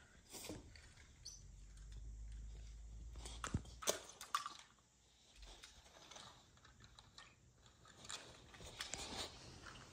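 Small toy cars clicking and tapping against each other as they are set down one by one in a line, in scattered light clicks that are busiest about four seconds in and again near the end.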